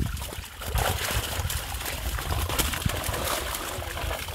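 Fish thrashing in shallow water trapped inside a mesh net, a dense patter of small splashes, over a steady low rumble.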